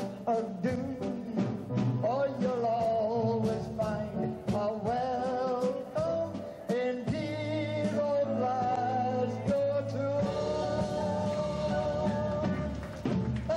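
Live singing into a microphone with a small band, the drum kit keeping the beat. The drum hits stand out in the first few seconds, and the voice holds a long note near the end.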